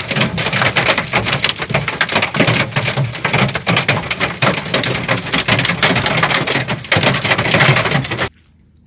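Hailstones pelting a hard surface: a loud, dense clatter of countless small impacts that starts abruptly and cuts off suddenly near the end.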